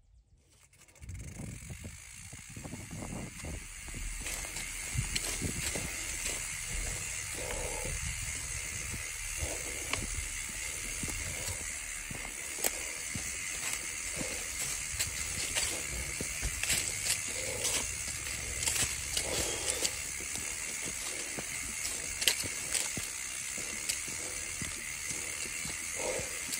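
Mountain bike rolling fast down a dirt singletrack strewn with dry leaves: steady tyre noise on dirt and leaves, with the bike rattling and ticking over bumps. It starts almost silent and builds over the first few seconds.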